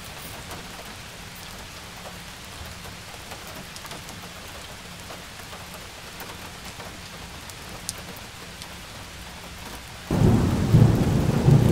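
Hail and rain falling on a lawn and garden: a steady hiss with scattered faint ticks. About ten seconds in, a much louder low rumble of thunder begins suddenly.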